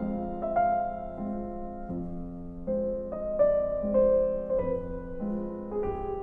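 Slow, gentle piano music: single notes and chords changing about every half second.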